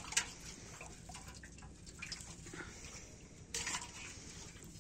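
Hands splashing and sloshing in shallow muddy water, with small drips and clicks, a sharp splash just after the start and a louder burst of splashing about three and a half seconds in.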